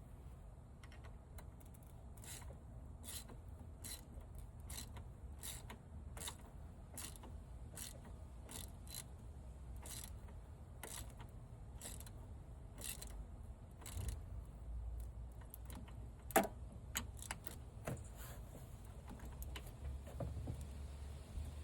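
A ratchet with a 19 mm socket clicking in short, fairly even strokes, about two clicks a second, as a new coolant temperature sensor is run into the engine; one sharper click comes about sixteen seconds in.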